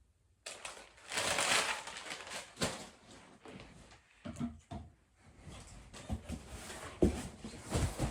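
Handling noise from unpacking: paper packaging rustling, with a few short knocks as items are moved, starting about half a second in.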